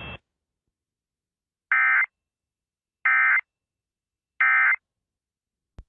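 Three short bursts of Emergency Alert System data tones, the warbling end-of-message code that closes an EAS alert. Each burst lasts about a third of a second, and they come about 1.3 seconds apart. They are heard over an FM radio broadcast.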